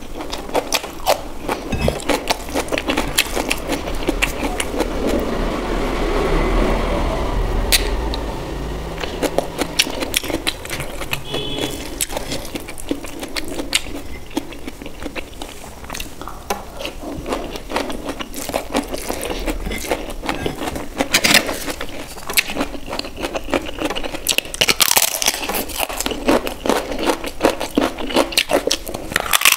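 Close-miked eating sounds: wet chewing and lip smacks of rice mixed with paneer gravy eaten by hand, with crunchy bites of raw red onion near the start. Near the end a piece of roasted papad is broken off, giving sharp crisp cracks.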